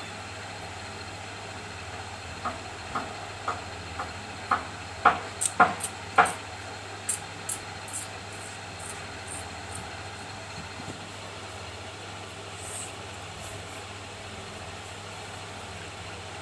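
Steady low hum and hiss, with a run of short sharp clicks about two a second starting a couple of seconds in, loudest in the middle, and dying away after about eight seconds.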